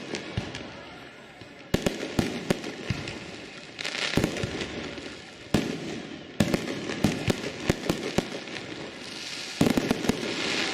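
Fireworks going off: sharp bangs and clusters of crackling reports. A fresh volley starts roughly every one to three seconds, each fading into a rumble before the next.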